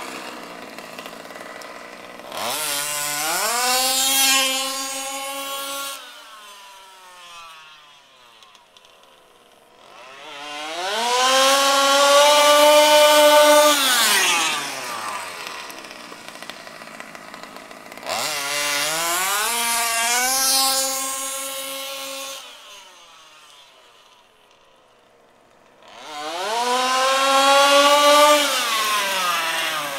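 Zenoah G320 32cc two-stroke engine with a V2 Dominator tuned pipe in a 1/5-scale HPI Baja SS RC buggy, revving up to full throttle four times on high-speed runs: each a steeply rising whine that holds a couple of seconds and then falls away, with low running between. The high-speed needle is tuned slightly lean at this point.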